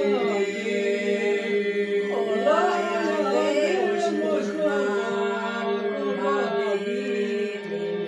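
Unaccompanied Aromanian polyphonic singing: a steady drone is held underneath while a lead voice sings a winding, ornamented melody above it.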